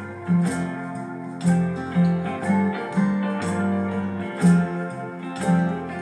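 Background music played on plucked guitar, with a new note struck about twice a second over held low notes.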